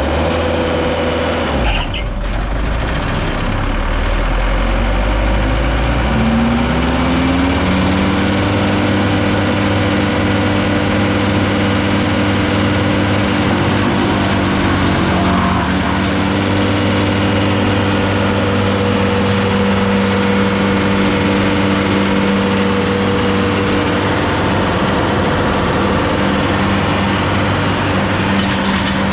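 Bandit 990XP wood chipper's engine running at a low speed, then speeding up smoothly about six to eight seconds in and holding at a steady higher speed.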